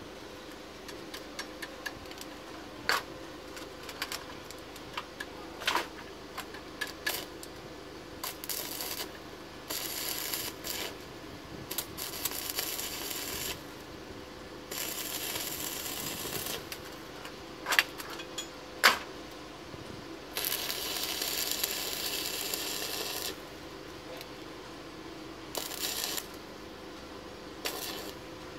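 Stick (arc) welder tack-welding an exhaust pipe to its flange: about six bursts of crackling hiss, most a second or two long and the longest about three seconds, with sharp clicks and taps between them.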